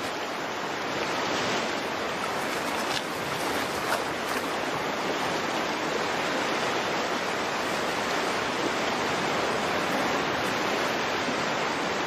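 Rushing water of a salmon stream: a steady, even rush of flowing water.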